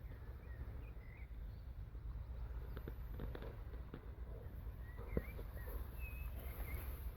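A few short bird chirps over a steady low rumble, with a run of light footsteps in the middle, the sharpest one about five seconds in.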